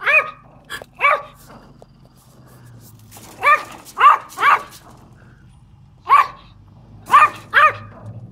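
Pomeranian barking defensively: about eight short, sharp barks in three bursts, two, then three, then three, with pauses of a second or two between bursts.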